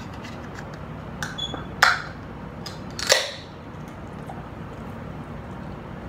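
An aluminium Coke Zero can being shotgunned: a few light clicks, then two sharp pops a little over a second apart, the second trailing off in a short hiss.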